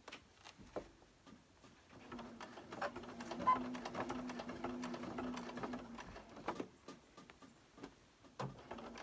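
Electric sewing machine stitching a gathered ruffle onto a towel in one run of about five seconds, starting about two seconds in: a steady motor hum with rapid ticking. A few soft clicks come before and after the run.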